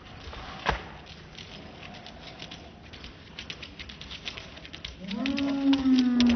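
Slowed-down slow-motion audio: scattered soft taps, like paws on paving tiles, then about five seconds in a long, deep, drawn-out call that sinks slightly in pitch, a voice dragged low by the slow playback.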